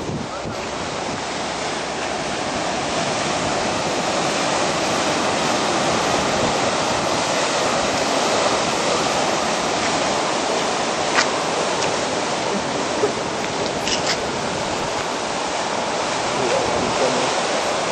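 Ocean surf breaking over rocks: a steady rush of waves, with a few brief clicks in the second half.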